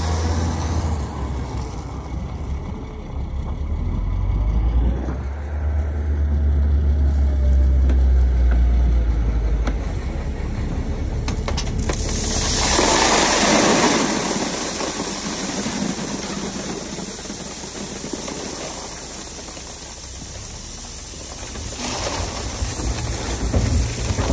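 Mack Granite stone slinger truck's diesel engine running with a strong low rumble that eases off about ten seconds in. Midway a loud hiss rises and lasts about two seconds.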